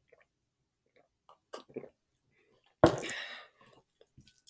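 A few faint swallowing clicks while drinking milk from a plastic cup. About three seconds in comes a sudden, loud, breathy exhale through the mouth that fades within a second, a gasp against the burn of very spicy noodles.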